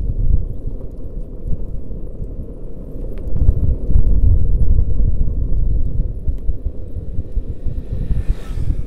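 Wind buffeting the microphone of a cyclist riding a bicycle, a loud low rumble that rises and falls, with a few faint clicks and a brief hiss near the end.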